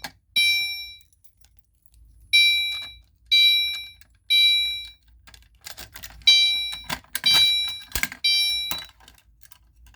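Fire alarm horn sounding the temporal code 3 evacuation signal: half-second blasts of a buzzy tone in groups of three, with a longer pause after each group. Light clicking and rattling, and a sharp knock about eight seconds in, come in between the blasts in the second half.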